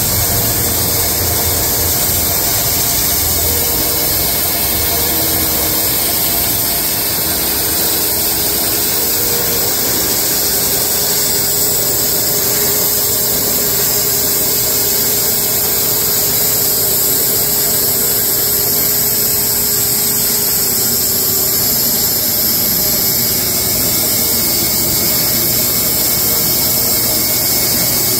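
Wood-Mizer LX250 portable band sawmill running steadily as its saw head travels along stacked horse chestnut cants.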